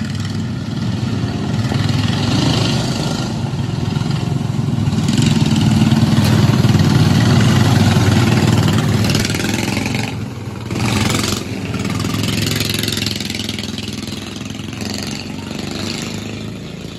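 Engines of several dirt-track race cars running past in a group. The sound builds to its loudest about six to nine seconds in, with a brief surge near eleven seconds, then fades as the cars move away.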